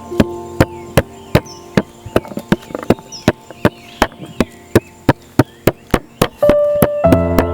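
A knife chopping on a cutting board in a steady rhythm of about two and a half strokes a second, over soft background music that grows louder near the end.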